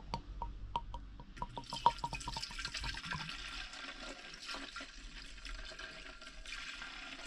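50:1 two-stroke petrol mix being poured into the fuel tank of a Neuson BS60Y trench rammer. It starts with a quick run of small ticks and drips, then turns into a steady pouring rush that carries on until shortly before the end.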